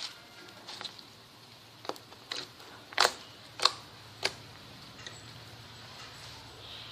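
Slime being pressed and worked, giving a run of sharp, irregular popping clicks, the loudest two near the middle.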